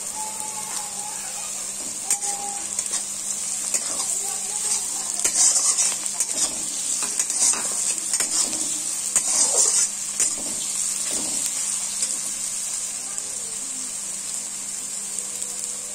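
Chopped capsicum and onions sizzling steadily in butter and oil in a kadai, with a metal spatula scraping and stirring them against the pan, the strokes busiest in the middle.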